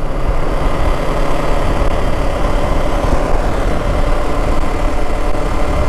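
Motorcycle riding along at a steady speed: the engine running under a loud, even rush of wind and road noise.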